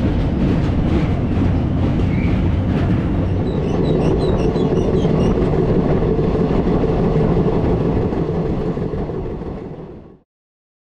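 Passenger train running at speed, heard from the open coach door as it crosses a steel truss bridge and runs on over ballasted track: a steady rumble of wheels on rails, with clacking in the first few seconds. The sound fades out and cuts off about ten seconds in.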